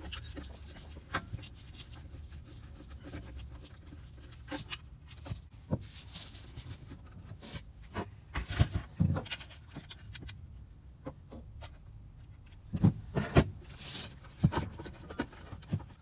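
Scattered clicks, taps and rubbing from hands and a screwdriver handling the wires and push-on connectors at a Secop DC compressor control module, over a steady low hum. The clicks bunch up twice, about halfway through and again near the end.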